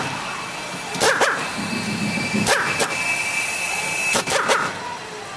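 Dog barking, two quick barks at a time, repeated about every second and a half.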